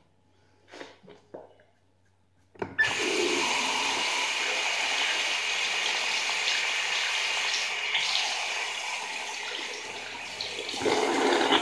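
Bathroom sink tap turned on about two and a half seconds in, water running steadily into the basin, with louder splashing near the end. A few short soft sounds come before it.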